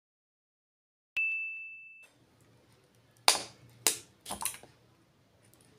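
A single bell-like ding sound effect that dies away over about a second. Then a hen's egg is knocked against a steel bowl: two sharp taps and a third, doubled crack as the shell breaks.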